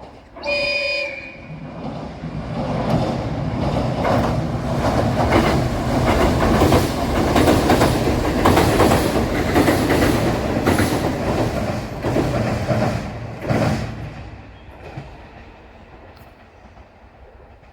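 A diesel train on the Suigun Line sounds a short horn blast, then passes with clattering wheels over the rail joints, growing loud and fading away as it goes by.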